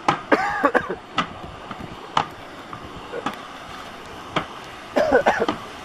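Sharp clicks and knocks of a camera in a plastic waterproof pouch being handled, with a person's short vocal sounds near the start and again near the end, over steady background noise.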